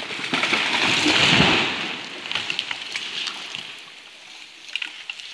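A felled conifer falling: its crown rushes down through the surrounding branches and the trunk hits the ground with a heavy thud about a second and a half in. Then come scattered snaps and rustling as the branches settle.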